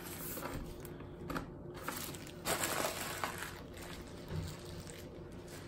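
Plastic packaging rustling and crinkling as items are handled in a cardboard box, with a few light knocks.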